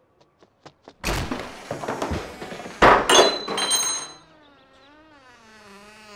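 A wooden front door banging open and shut with loud clattering, and a sharp crash about three seconds in that leaves a brief ringing. It is followed by a fainter wavering, bleat-like cry.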